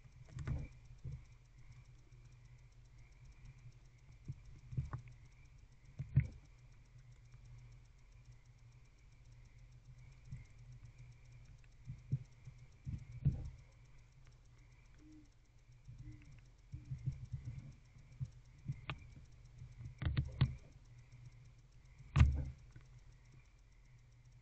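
Barn owl tearing at and eating a rodent on the wooden floor of its nest box: irregular knocks, taps and scrapes as it pulls at the prey and shifts about, the loudest a couple of seconds before the end. Under it runs a steady low hum with a faint high whine.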